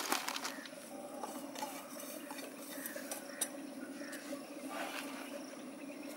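Dry spice powder poured from a steel tin into a plastic bowl and worked by hand, soft rustling and sifting, with a sharp tick of the tin about halfway through and a second pour near the end. A steady low hum runs underneath.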